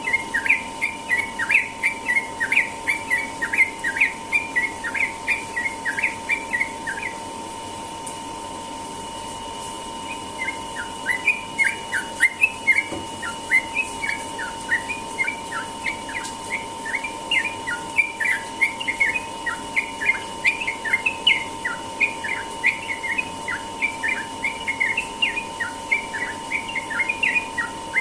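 Yellow-vented bulbul (trucukan) singing long, rapid runs of short chirping notes, the continuous 'ropel' morning song. The song breaks off for about three seconds a quarter of the way in, then carries on. A steady faint tone sits underneath.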